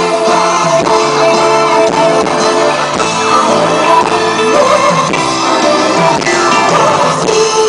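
Live rock band playing loud through a concert sound system, electric guitar prominent, with singing over it.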